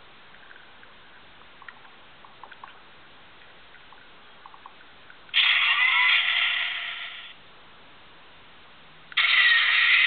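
Electronic sound effects from a Transformers Sentinel Prime Leader Class toy's small built-in speaker: two loud, harsh effects of about two seconds each, the first about five seconds in and fading away, the second starting near the end. Faint clicks come before them.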